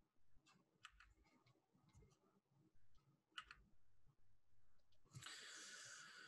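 Near silence: room tone with a few faint clicks, the clearest about three and a half seconds in, and a faint hiss starting near the end.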